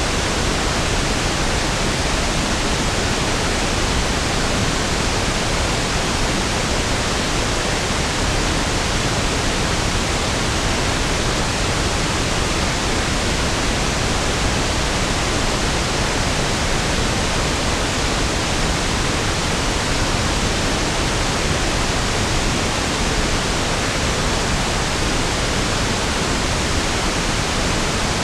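Steady pink noise (1/f noise): an even, unchanging hiss with equal energy per octave, fuller and deeper than white noise.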